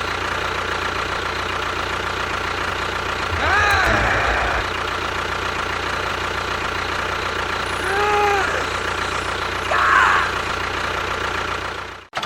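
Steady engine-like drone of a small motor running, with a few short pitched sounds that rise and fall over it, about four seconds in and again near eight seconds. It cuts off suddenly just before the end.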